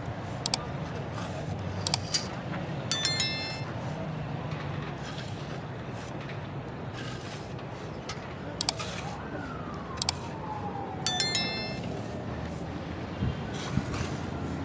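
A metal shovel scraping and spreading sand bedding for concrete pavers, with scattered clicks and two sharp ringing clinks, about three seconds in and again about eleven seconds in, over a steady low background rumble.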